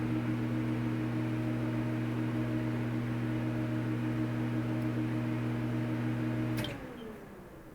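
Film projector running with a steady hum and whir, then switched off with a click about two-thirds of the way through, its motor winding down with a falling pitch as it fades out.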